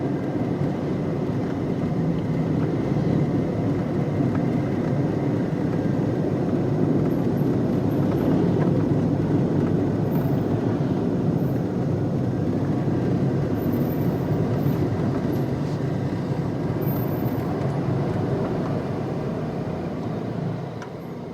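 Inside the cabin of a moving car: steady road and engine noise as a low rumble, fading down near the end.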